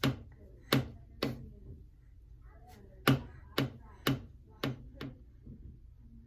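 A baby banging something hard on a surface: about eight sharp knocks, three in the first second and a half, then a run of five at about two a second.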